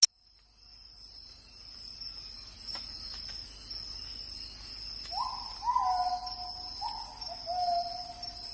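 A steady, high-pitched chorus of crickets or other insects. From about five seconds in come four or five drawn-out calls, each a little lower in pitch than the one before. A sharp click sounds at the very start.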